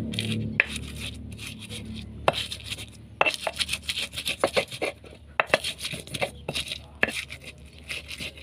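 Stone pestle knocking and grinding shallots, garlic, chilies and salt on a stone mortar (Indonesian ulekan): a run of sharp, irregular stone-on-stone knocks with crushing and rubbing between them, thickening after about three seconds.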